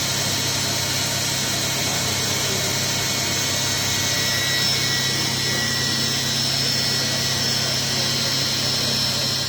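ZPS MCFV 1060 NT vertical machining center running, a steady mechanical noise with a constant low hum and a thin high whine.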